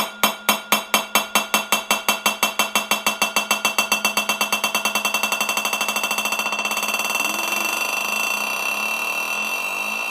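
A hard, ringing object rattling against a hard surface, its strikes speeding up from about four a second until they merge into one continuous ringing whirr, like a lid or coin spinning down as it settles.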